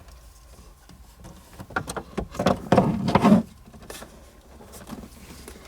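Handling noises from working a strip of double-sided mounting tape: a few small clicks, then about a second of rustling and scraping.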